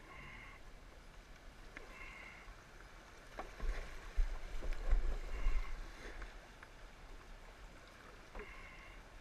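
Kayak running down a shallow creek riffle: steady rushing water with paddle strokes splashing. Low rumbling bumps come in the middle. A short high call repeats about every two to three seconds.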